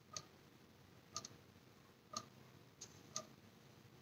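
Faint ticking of a clock, about one tick a second.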